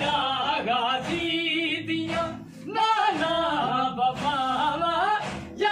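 A male voice singing a noha, a Shia lament, into a studio microphone: an ornamented melody that wavers and bends in pitch, with a short break for breath about two and a half seconds in.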